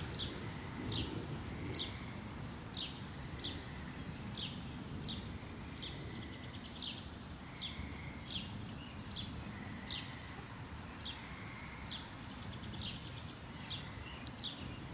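A songbird singing a long, steady series of short, high, downward-slurred notes, a little more than one a second, over a low background rumble of outdoor noise.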